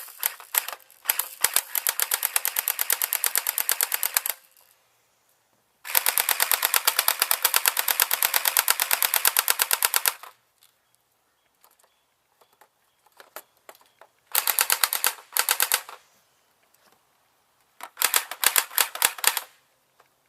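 Airsoft P90 firing on full auto: long bursts of rapid, evenly spaced snapping shots, four of them, the second the longest at about four seconds, with a few single shots in between.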